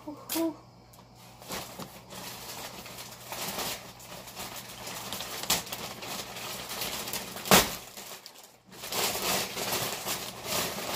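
Plastic bag wrapping and bubble wrap crinkling and rustling as they are handled and pulled off a packaged part, with one sharp snap about three quarters of the way through.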